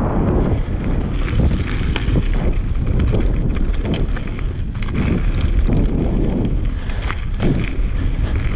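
Downhill mountain bike running fast down a dry dirt-and-gravel trail: steady wind rush over the camera microphone and tyre rumble on loose ground, with frequent sharp clicks and rattles from the bike as it bounces over stones.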